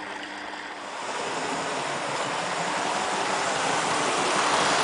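HO-scale Rivarossi 'Blue Goose' Hudson model locomotive running on its track: a steady rushing rattle of wheels on rail and motor. It grows steadily louder from about a second in as the locomotive draws closer.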